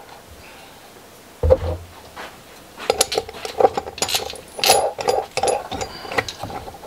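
Hands handling and fitting small parts on a plastic turbine housing: a dull thump about a second and a half in, then a run of clicks, knocks and rattles.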